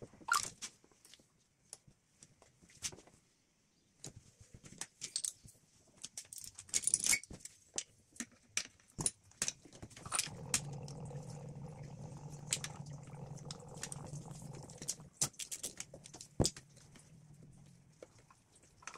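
Metal hand tools clicking and clinking against engine parts while bolts and connectors are worked loose, in scattered short strokes. A steady low hum runs for several seconds from about halfway through.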